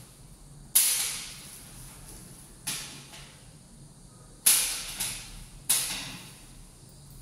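Hammer blows on metal: four sharp strikes, unevenly spaced, each ringing out briefly.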